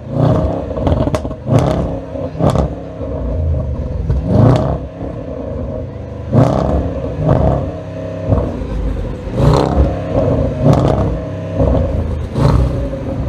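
Range Rover Sport's exhaust as the stationary engine is revved in about a dozen sharp blips, each climbing quickly and dropping back to idle between them.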